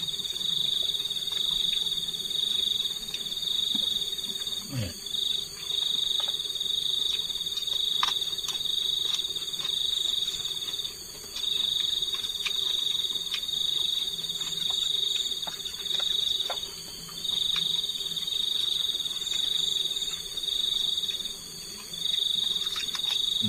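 Crickets chirping: a high, shrill trill that comes in short bursts one after another, with a couple of brief pauses. Faint clicks from the campers' eating are heard under it.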